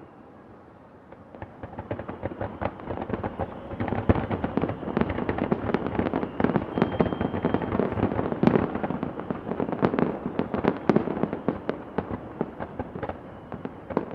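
New Year fireworks and firecrackers going off together in a dense, rapid crackle of overlapping bangs. It builds up about a second and a half in, stays thick for most of the stretch, and thins a little near the end.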